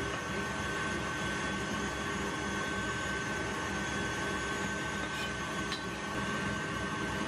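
Steady whirr of a kitchen appliance motor with a constant high whine, unchanging throughout. A couple of faint taps come about five and six seconds in.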